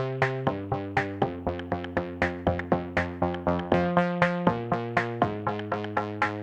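Electronic background music: synthesizer notes struck about four times a second in a steady rhythm, over held chords that change every half second or so.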